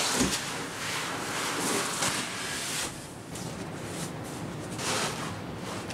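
Large cardboard box sleeve being lifted and slid off a shipping crate: cardboard scraping and rustling in uneven surges, with a dull thump right at the start.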